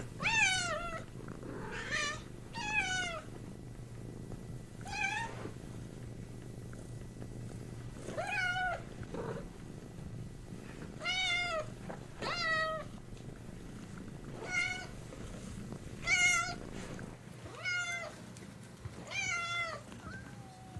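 Domestic cat meowing repeatedly, about a dozen separate meows one to two seconds apart, each dropping in pitch at its end.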